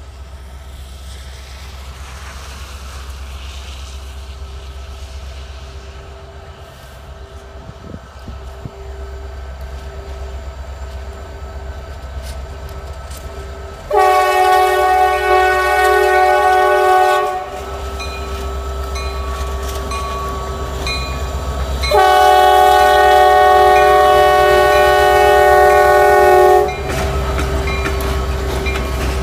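Air horn of a CSX SD70MAC diesel locomotive sounding a multi-note chord for a grade crossing as the train draws near and passes close by, over the rumble of the locomotives' diesel engines. The horn is faint at first. Two loud long blasts come about halfway through and again about eight seconds later, with quieter horn in between.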